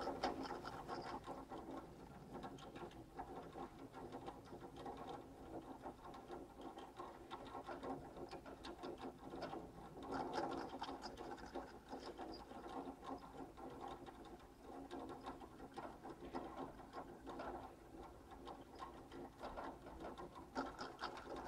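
Heuss short-bar T-bar ski lift running: a fast, continuous mechanical rattle with a steady hum under it, a little louder about ten seconds in.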